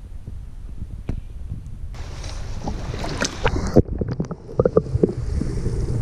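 Wind rumbling on the camera microphone, then from about two seconds in water splashing and sloshing around the camera with sharp clicks. Just before the four-second mark the sound suddenly goes dull as the camera dips underwater, leaving a muffled rumble and a few knocks.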